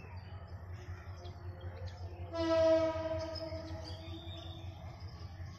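Diesel locomotive horn of the approaching train sounding one held note for about a second, over a steady low rumble, with birds chirping faintly.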